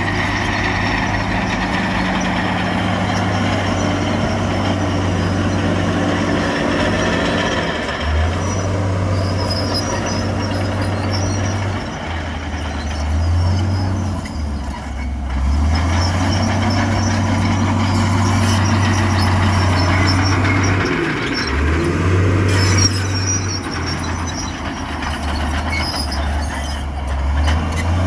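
Heavy diesel engines of earthmoving machines running under work, the low engine note stepping up and down several times as the load and throttle change.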